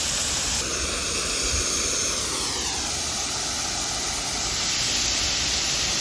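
A passing engine whose pitch falls between about two and three seconds in, then holds lower, over a steady rushing hiss.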